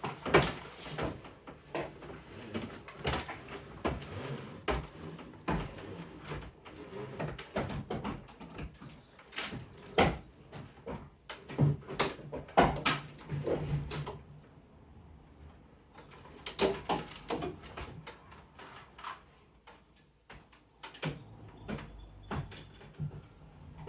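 Irregular knocks, clicks and bumps of things being handled and set down, with quieter stretches after the middle.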